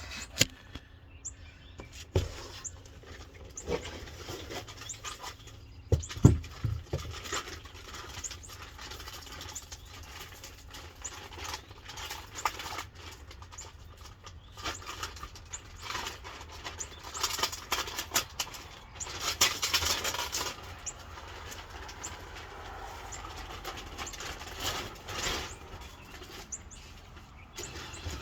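Plastic wrapping rustling and crinkling as it is pulled off a supercharger, with scattered clicks and handling knocks, two of them louder within the first seven seconds.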